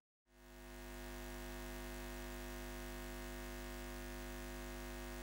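A steady electrical hum with many overtones, fading in after a moment of silence and holding unchanged.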